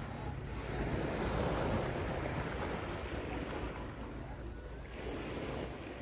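Wind buffeting the microphone: a steady rushing with a low rumble, swelling in the first couple of seconds and easing slowly after.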